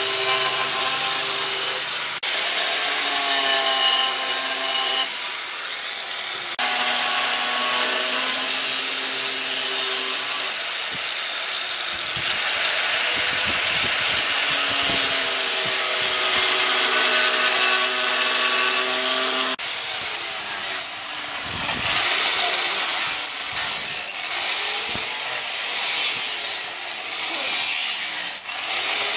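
Electric angle grinder cutting and grinding a steel knife blade. The motor whine sags and recovers as the disc bites into the metal, and the sound changes abruptly a few times.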